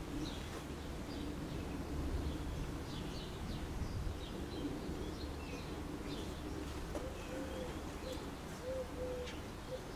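Small birds chirping on and off, with a pigeon cooing, including a run of short coos in the last few seconds, over a low steady rumble.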